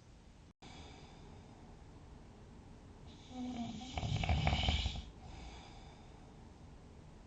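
A sleeping person snoring: one loud, rough snore about halfway through, lasting about two seconds and opening with a short higher-pitched tone, between quieter breathing.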